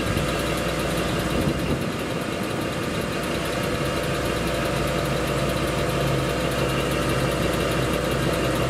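Motorhome engine idling steadily, heard from underneath the coach, with a low steady hum joining about five seconds in.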